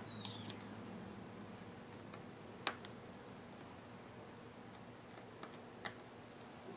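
Faint, sparse clicks of a small precision screwdriver working the tiny screws that hold an iPhone 4's screen to its metal frame, with a sharper tick about two and a half seconds in and another near six seconds.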